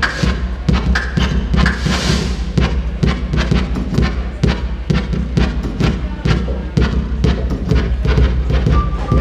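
Electronic drum-machine beat from littleBits Synth Kits played as analog drum synthesizers, their steps set by Lego bricks: fast, even percussive hits over a steady low bass tone. A hissy noise swell rises and fades about two seconds in.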